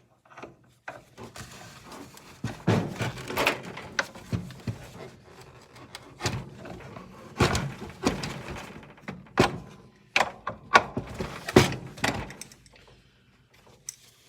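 Irregular knocks and clunks of a miter saw's metal and plastic parts being handled and worked on during disassembly, as a stuck screw is fought with. The hits come every second or so, with a quieter stretch near the end.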